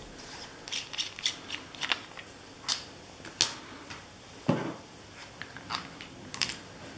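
Small clicks and clatters of handheld laser pointers and their caps being handled and set into cardboard boxes with foam inserts, with one duller knock about four and a half seconds in.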